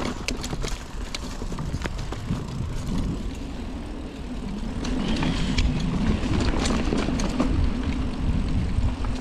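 Mountain bike riding along a dirt trail: a steady low rumble of wind and tyre noise on the microphone, with sharp knocks and rattles from the bike over rough ground, growing louder about halfway through.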